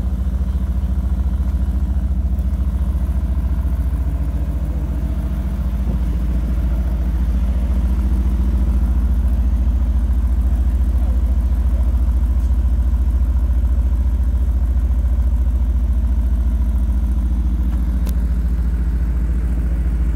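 Mercedes-AMG GT R's twin-turbo V8 idling steadily and low-pitched as the car creeps out of its parking spot at walking pace, without revving. It gets a little louder about six seconds in.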